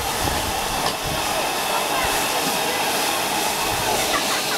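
Steady rushing hiss of food frying in a wok over a gas burner as it is stirred.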